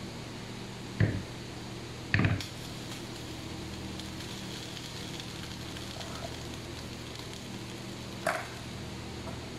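A frying pan is knocked and set down on a glass-top hob: sharp clanks about a second and two seconds in, and a lighter one near the end, over a steady low hum.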